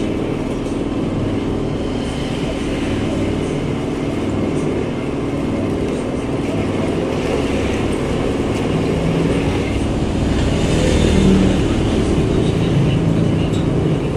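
Metal lathe running, spinning a steel sliding-gate wheel against its cutting tool: a steady machine hum that swells a little near the end.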